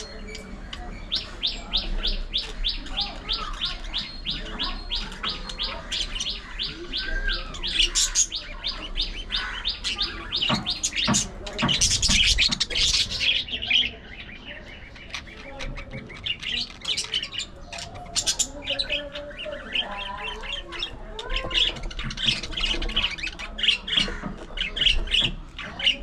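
A flock of budgerigars chattering and warbling, opening with a long run of rapid, evenly repeated chirps at about five a second. A louder burst of mixed squawks and chirps comes near the middle, then scattered chirps to the end.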